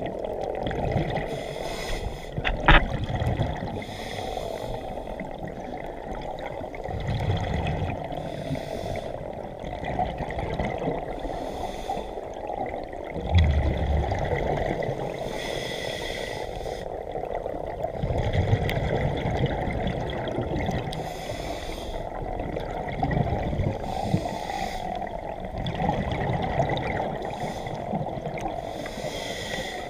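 Scuba diver breathing through a regulator underwater: a hiss of water with a gurgling rush of exhaled bubbles every few seconds. There is one sharp knock about three seconds in.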